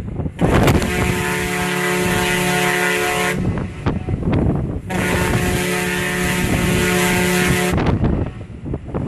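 Ship's horn of the SS Badger car ferry sounding two long, steady blasts of about three seconds each, a second and a half apart. Wind buffets the microphone between the blasts.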